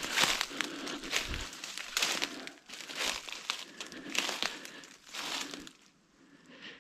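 Dry leaves and brush crunching and rustling underfoot, in uneven bursts about every half second to a second, stopping near the end.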